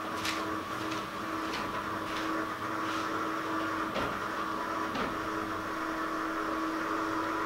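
Electric roller shutter lowering over a glass balcony door: a steady motor hum, with the slats clicking and knocking every second or so as they roll down.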